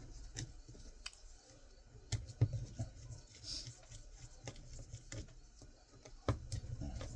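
Irregular small clicks, taps and scrapes of a Torx screwdriver working the screws of a hard drive's metal casing, with sharper knocks about two seconds in and again near the end.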